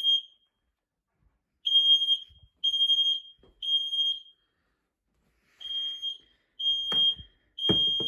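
Household smoke alarm, set off by aerosol deodorant spray, sounding high-pitched beeps in groups of three with a short pause between groups, the temporal-three evacuation pattern. A few low knocks come in near the end.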